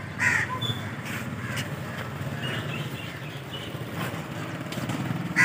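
Fiat 640 tractor's diesel engine idling steadily with a low, even hum.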